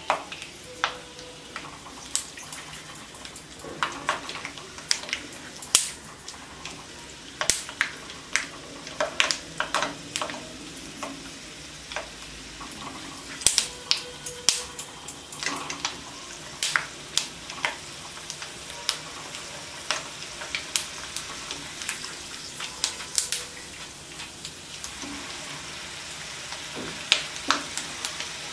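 Peanuts deep-frying in hot oil in a wire-mesh basket in a steel kadai: a steady sizzle with frequent sharp pops and clicks.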